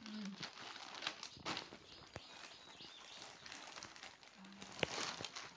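Thin plastic shopping bag crinkling and rustling as it is handled and opened, with irregular crackles and one sharp click near the end.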